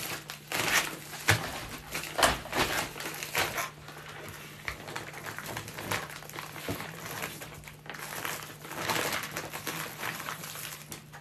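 A bag crinkling and rustling, with many small irregular clicks and rattles of handling.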